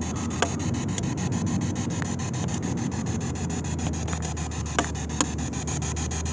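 Steady low drone of a moving car heard from inside the cabin, with rubbing handling noise on a handheld camera's microphone and a few short clicks.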